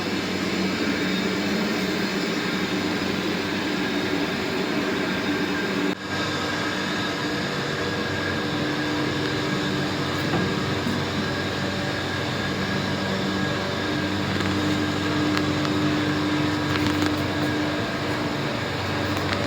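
Textile stenter running: a steady industrial hum with a few held low tones over a broad hiss of air, typical of the drive and circulation fans. There is a brief drop in level about six seconds in.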